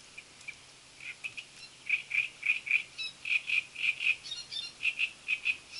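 Reed warbler singing among the reeds: a rapid series of harsh, croaky, chattering notes, about three or four a second, starting about a second in.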